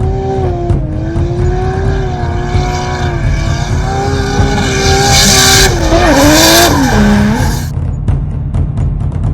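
A racing car's engine running at high revs over a heavy music beat. Its pitch wavers, then drops in a few steps about six to seven seconds in, and the engine cuts off shortly after. A loud hissing rush joins it about five seconds in.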